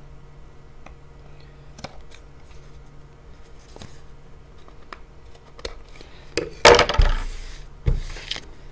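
Scissors trimming the edges of watercolor paper in sparse light snips, then louder rustling of the paper being handled and a sharp knock on the table near the end.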